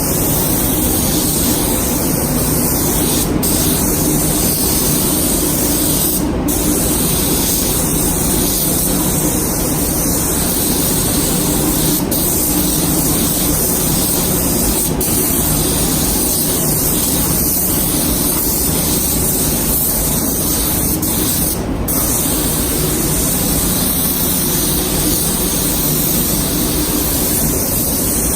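Compressed-air spray gun spraying a coat of primer onto car body panels: a steady hiss with a few brief breaks.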